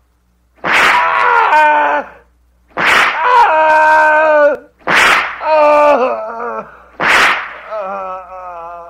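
Four whip lashes about two seconds apart, each sharp crack followed at once by a man crying out in pain. After the last lash the cry trails off into a quieter, wavering moan.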